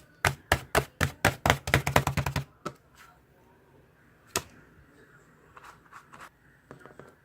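A quick run of about fifteen sharp taps that speeds up over two seconds, then one more sharp tap a couple of seconds later and a few faint ticks.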